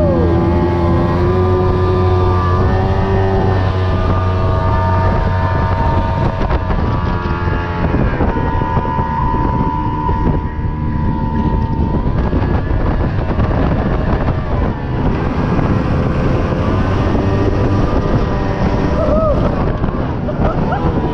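Fast boat's engine running steadily at speed, with wind buffeting the microphone.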